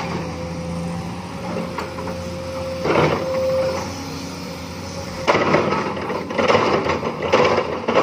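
Hydraulic crawler excavator's diesel engine running steadily with a low hum as the boom raises the loaded bucket. There is a louder burst about three seconds in, and rougher, irregular clattering from about five seconds in.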